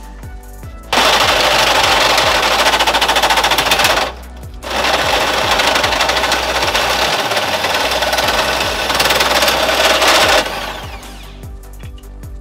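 Hole saw driven by a drill, cutting a notch into steel tube in a HAFCO tube notcher: a loud, fast rattling chatter for about three seconds, a short pause, then about six seconds more before it stops.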